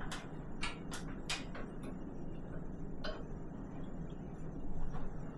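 Scattered light clicks and clinks, about a dozen, mostly in the first two seconds with a few later, from metal tools and fittings being handled.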